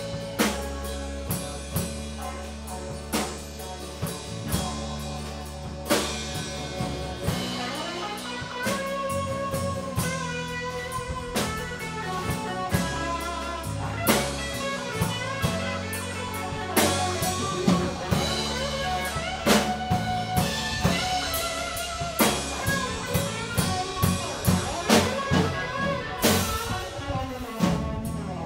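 Live band playing an instrumental passage with no singing: drum kit, electric bass, and acoustic and electric guitars, with a lead line that bends up and down in pitch over a steady beat.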